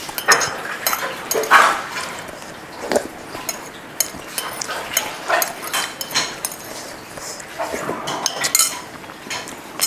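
Metal spoon clinking and scraping against a ceramic plate as soup is eaten. Several short cries sound in the background, loudest about a second and a half in and again near the end.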